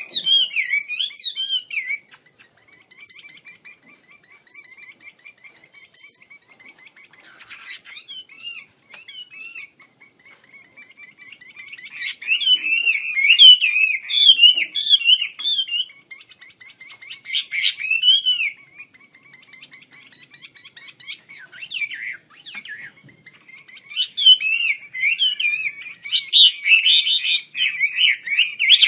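Chinese hwamei singing: loud rapid warbling phrases in several bursts, with short high whistled notes between them and a faint steady trill underneath.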